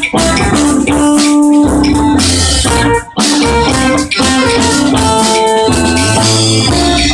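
A live band playing: drum kit, electric guitars, bass guitar, keyboard and violin, recorded loud and rough. About three seconds in, the whole band stops for a split second and comes straight back in.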